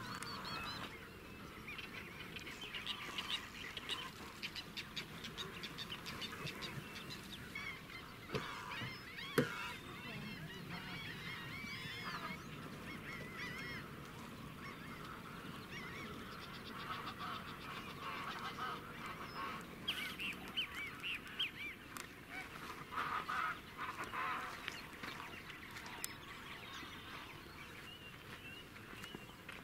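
Many wild birds calling at once, a dense mix of overlapping chirps and honking calls that comes and goes in waves. Two sharp knocks stand out around eight and nine seconds in.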